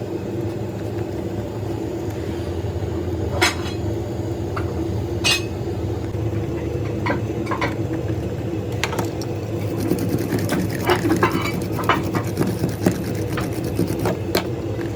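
A steady mechanical hum with irregular sharp clicks and knocks over it, the knocks coming more often in the second half.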